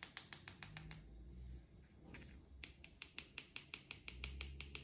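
Small plastic hand sieve clicking rapidly as it is shaken to dust powdered sugar, about six sharp clicks a second, with a break of about a second near the middle.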